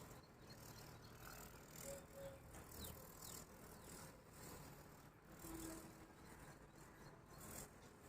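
Near silence: faint room tone with a few soft, brief, indistinct sounds.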